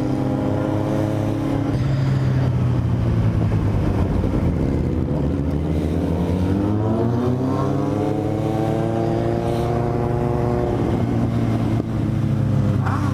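Motorcycle engine running under way, its pitch dipping, then rising steadily for several seconds and dropping away again near the end as the throttle is eased.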